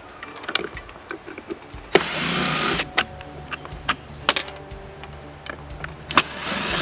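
Cordless drill-driver run in two short bursts, about two seconds in and again near the end, backing out the screws of an RV door lock body. Small clicks and taps of the metal lock parts come between the bursts.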